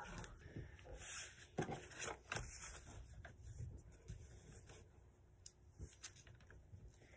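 Faint rustling and crinkling of a sheet of paper being folded and creased by hand, with a few soft clicks, quieter in the second half.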